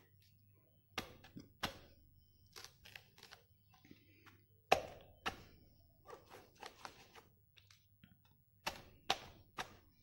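A green coconut being hacked open with a blade: about seven sharp chops, in irregular pairs and clusters.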